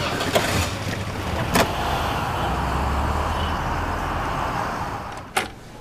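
A car door shuts with a sharp knock, then a taxi pulls away, its engine and tyre noise swelling and fading as it drives off. One more short knock near the end.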